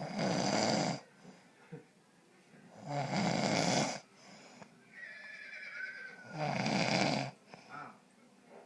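A man snoring: three loud snores about three and a half seconds apart, with much quieter breathing between them.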